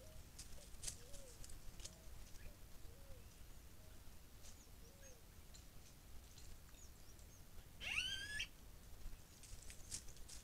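Dry leaves crackling faintly under a southern caracara's feet, and a run of soft, low, wavering bird notes in the first half. About eight seconds in comes one short bird call that rises sharply and then levels off; it is the loudest sound.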